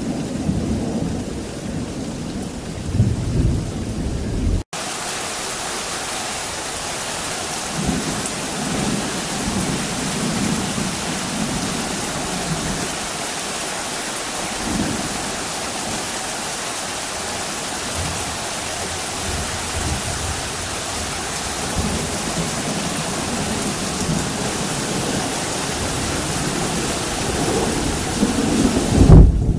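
Heavy thunderstorm rain falling in a steady downpour, with thunder rumbling. A low roll of thunder sounds in the first seconds, the sound breaks off abruptly about four and a half seconds in, then a dense, even rain hiss carries on with low distant rumbles, and a loud clap of thunder comes near the end.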